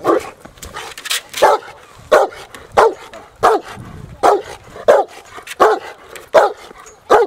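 Rottweiler barking in a steady, regular series, a bark roughly every two-thirds of a second: guard barking at a helper holding a bite sleeve.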